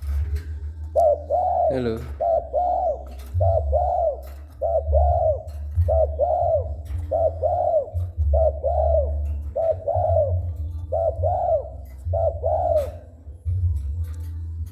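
Spotted dove (tekukur) cooing over and over, a steady run of short two- and three-note coo phrases repeated about every second and a half, over a steady low rumble.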